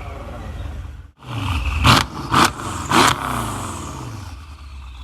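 Mercedes-AMG CLS63 V8 engine and exhaust revved while stationary: the engine eases back from a rev, the sound drops out briefly about a second in, then three quick sharp throttle blips, each rising and falling back, before it settles to idle.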